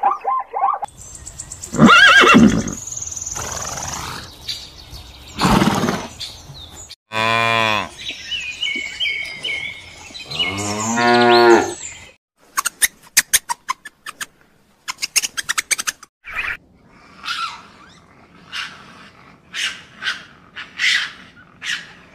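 A string of different animal calls. A cow moos twice with long, low calls in the middle, then come rapid clicks and a run of short high chirps near the end.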